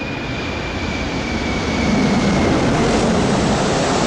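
An aircraft passing overhead: a steady rushing noise that grows louder about two seconds in.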